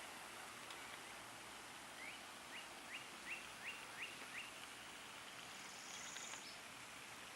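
Faint bird calls over a steady outdoor hiss: a series of seven short rising notes, a little under three a second, then a brief high trill about six seconds in.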